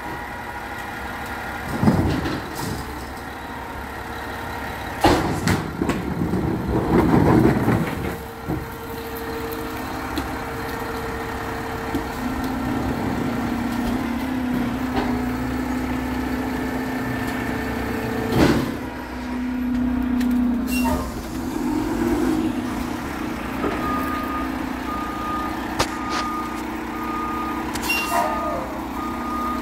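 Garbage truck engine running, with several loud thumps and clanks. Near the end its reversing alarm starts beeping, about once a second.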